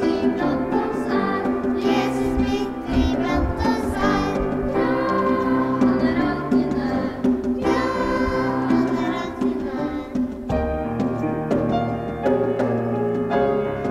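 Children's choir singing with instrumental accompaniment.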